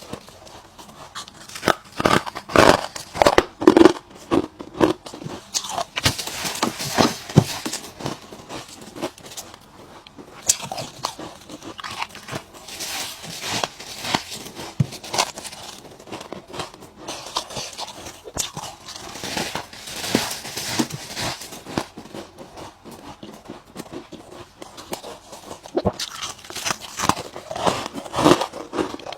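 A person biting and chewing ice, close to the microphone: clusters of sharp, irregular crunches with quieter chewing between them.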